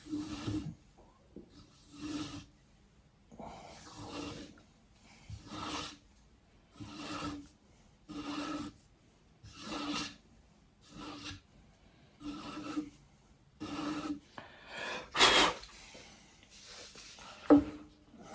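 A knife blade being sharpened on a Tsprof guided sharpening system: a sharpening stone drawn along the edge in separate rasping strokes, about one every second and a half, with one louder stroke near the end.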